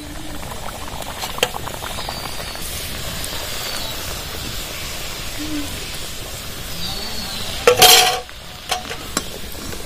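Luchi deep-frying in hot refined oil in an aluminium kadai: a steady sizzle, with light clicks of a slotted metal spoon against the pan and one louder metal clank about eight seconds in.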